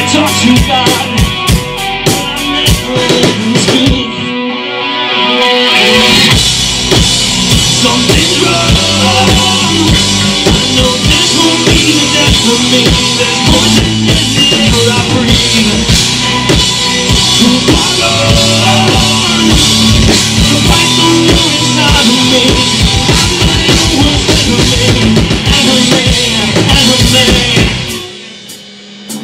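Live rock band playing an instrumental passage with electric guitars and a drum kit. About four seconds in, the drums drop out for a couple of seconds while the guitars ring on, then the full band crashes back in. Near the end the band breaks off briefly before coming back in.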